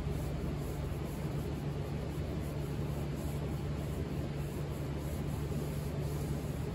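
Steady low mechanical hum over an even hiss, unchanging throughout.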